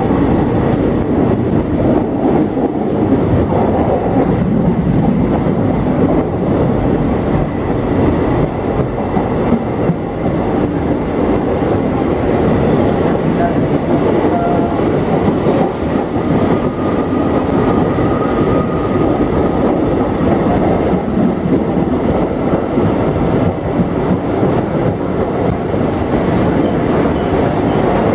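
Indian Railways express train's blue passenger coaches running past at speed: a steady, loud rumble with the wheels clattering over the rail joints.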